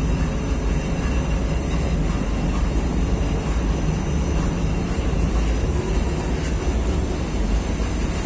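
Steady low mechanical rumble of bakery machinery running, with a faint high whine over it.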